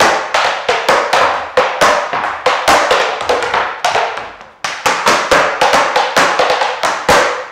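Metal taps on tap shoes striking a wooden board in a quick, syncopated tap dance rhythm, with a short break a little past halfway.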